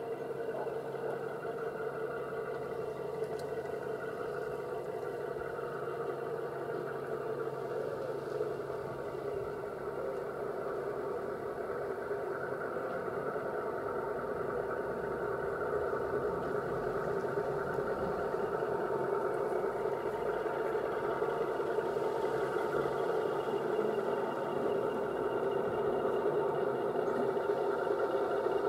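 O gauge model Class 53 diesel locomotive running along the track, a steady engine-like hum with several held tones that grows slowly louder as the train comes closer.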